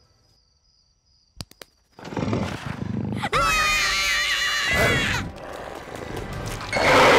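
Cartoon creature sound effect: after a near-silent pause with two soft clicks, a low rumble builds, then a loud, wavering animal-like shriek lasting about two seconds, and a short loud burst near the end.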